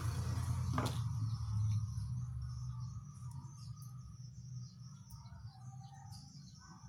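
Low rumble of a passing vehicle fading away over the first few seconds, with a sharp click about a second in, then small birds chirping in short, scattered calls.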